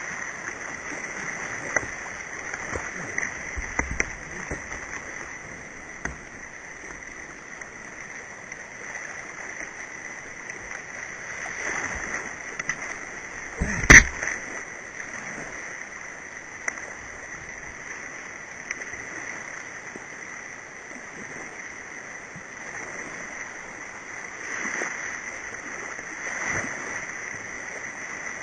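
Kayak running a whitewater rapid at very high flow: steady rush of churning water with splashes against the hull, and one sharp knock with a splash about halfway through, the loudest moment.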